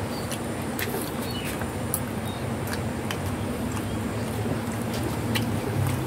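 Several cats chewing and licking a cassava snack from a plastic tub, heard as scattered small clicks and smacks, over a steady low hum.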